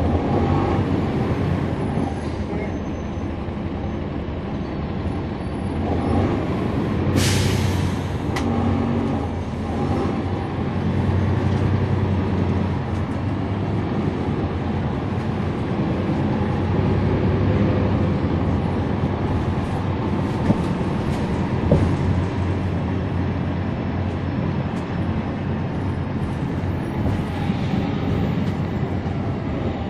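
Inside a 2011 NABI 40-SFW transit bus: its Cummins ISL9 diesel engine running steadily. About seven seconds in comes a sharp hiss of air from the bus's air system, lasting about a second.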